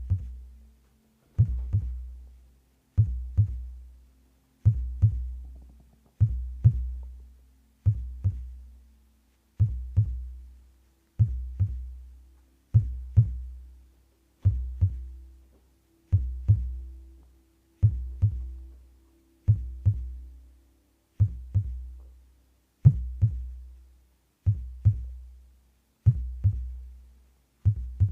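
Slow, steady heartbeat: a double thump (lub-dub) about every second and two-thirds, each deep and booming with a short fading tail. A faint steady hum runs underneath.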